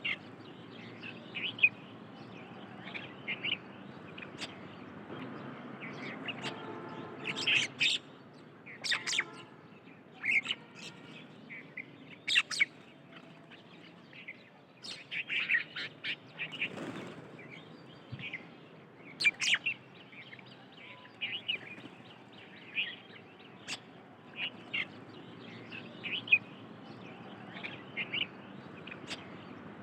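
Small birds chirping and calling, many short sharp chirps coming one after another, with a buzzier call about seven seconds in.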